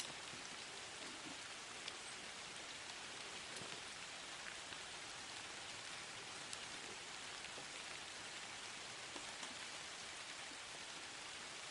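Light rain falling steadily: an even hiss with scattered faint ticks of drops.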